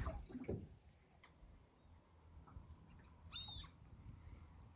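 A gull gives one short mewing call about three seconds in, over a faint low steady rumble.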